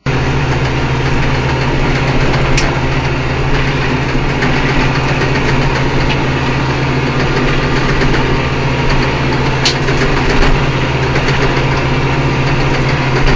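Kubota M8540 Narrow tractor's diesel engine running steadily under load while driving a flail mulcher through grass, heard from inside the cab as a constant low drone with a wash of mechanical noise. Two brief sharp ticks stand out, one early and one past the middle.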